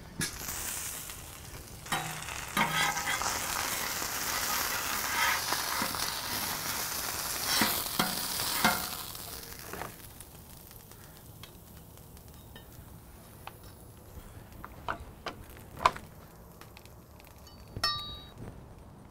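Beef patty and its shredded cheddar-mozzarella cheese skirt sizzling hard on a hot flat-top griddle, with a few sharp scrapes and knocks. The sizzling stops about ten seconds in, leaving only a few light knocks.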